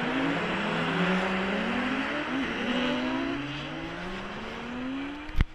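Several race cars' engines revving and falling back as they slide around a snowy ice-racing corner, more than one engine note at once, rising and falling in pitch. Near the end there are two sharp, loud clicks.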